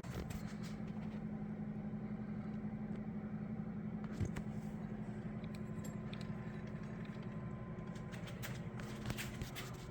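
Steady machine hum with a few light clicks and taps, one about four seconds in and several near the end.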